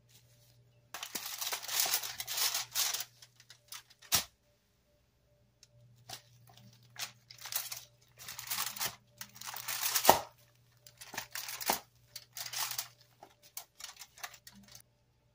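Aluminium foil crinkling and rustling in irregular bursts as a gloved hand kneads raw ground beef on a foil-lined tray, with one sharp click about four seconds in.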